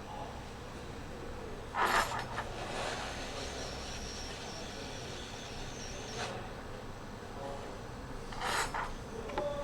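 Short scraping and rubbing sounds of hand tools being worked at a repair bench, once about two seconds in and again near the end, with a faint steady hiss between about two and six seconds in.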